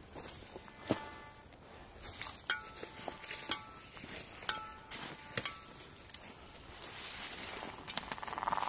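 Metal detector giving several short, pitched beeps as its coil is swept over the ground, mixed with footsteps and sharp crackles of dry leaves and twigs underfoot.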